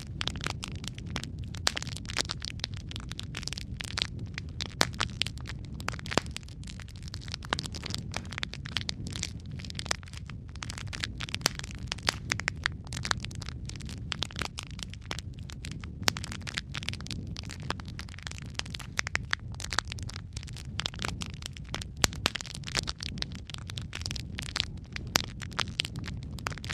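Wood fire of burning logs crackling and popping, with frequent sharp cracks over a steady low rumble of the flames.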